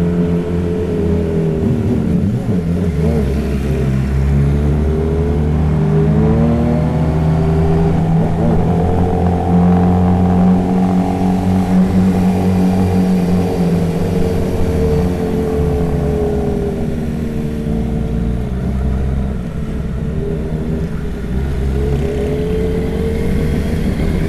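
Motorcycle engine running under way, its pitch slowly rising and falling several times as it accelerates and eases off.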